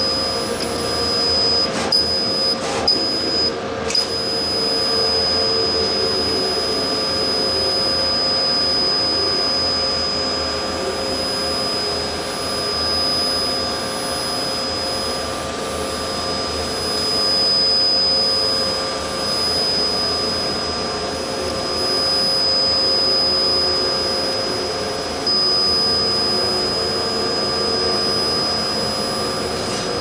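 Laser cutting machine running as it cuts a clear acrylic sheet: a steady machine whir with a high steady whine over it, and a few sharp clicks in the first four seconds.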